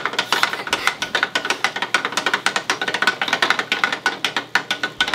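Battery-powered toy blender running, with plastic toy carrot pieces clattering against the plastic jug in a fast, irregular rattle.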